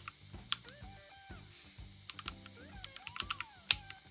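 Computer keyboard keystrokes: one key press about half a second in, then a quick run of keys and a single loud key strike near the end. Boogie-woogie background music plays throughout.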